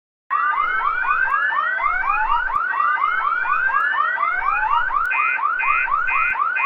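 Fire alarm going off suddenly: a loud electronic whoop, a rising sweep repeating several times a second over slower rising glides. A pulsing beep tone, about two a second, joins about five seconds in.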